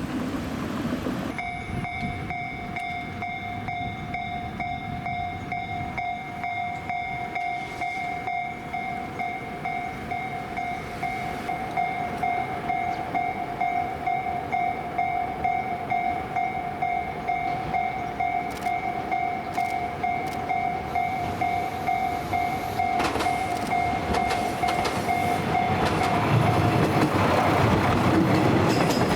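Japanese level-crossing warning bell ringing its steady "kan-kan" tone, starting about a second in. Near the end a train comes through, its running noise and wheels on the rails growing loud over the bell.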